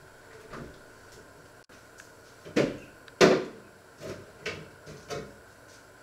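About half a dozen knocks and clunks of things being handled in a kitchen, the two loudest close together about two and a half to three seconds in.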